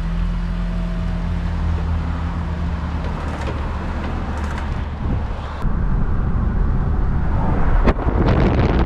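SUV engine running steadily as it tows a boat trailer away from a standstill. About eight seconds in, the sound changes to loud road and wind noise of the car driving at speed with the trailer behind.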